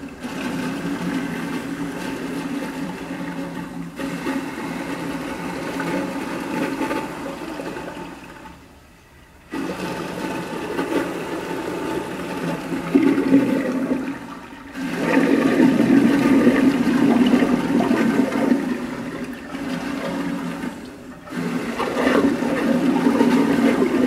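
Toilets flushing, water rushing and swirling down the bowl. Several flushes follow one another: the rush dies away about 9 seconds in and again around 21 seconds in, and starts again sharply after each break.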